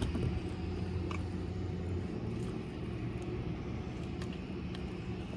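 Steady low engine rumble, with a few faint clicks on top.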